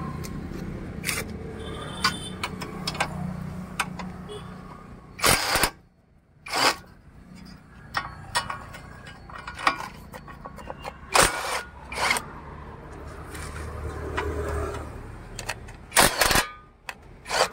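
Cordless impact wrench undoing the 16 mm nuts on a car's front suspension in several short bursts, between metallic clinks of nuts and tools being handled; a low steady hum runs underneath.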